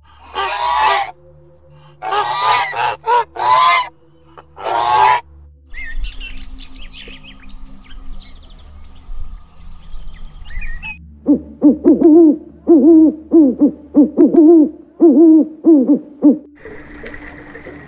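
A sequence of animal calls from different animals. It opens with a few loud, harsh calls about a second long, followed by faint high chirps. Then comes a run of about ten short calls at a steady pitch, about two a second.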